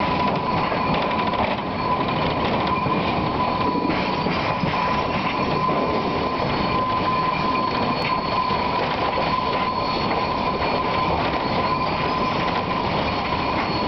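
Southern Pacific 4449, a 4-8-4 steam locomotive, running along and heard from inside its cab: a loud, steady din of running gear and rails, with a steady high tone held throughout.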